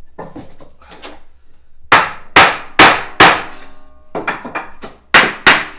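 Hammer striking a wooden offcut held against the edge of a tongue-and-groove chipboard floor board, knocking the board tight where one end has not closed up. Four sharp blows about half a second apart start about two seconds in, then a few lighter taps and two more sharp blows near the end.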